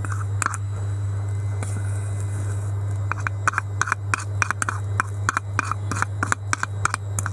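A teaspoon stirring a thick homemade slime of toothpaste and detergent in a bowl, with quick irregular clicks and scrapes, several a second, starting about three seconds in. A steady low hum runs underneath.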